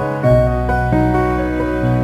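Background music: soft, slow instrumental with sustained notes over a steady deep bass.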